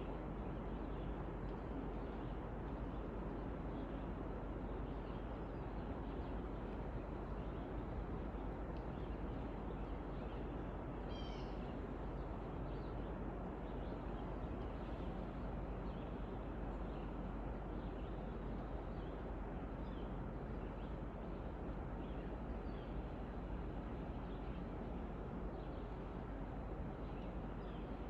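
Steady background hiss of outdoor ambience with faint, scattered bird chirps, one clearer call about eleven seconds in.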